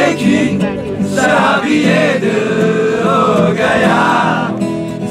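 A group of young people singing a song together, with an acoustic guitar accompanying them.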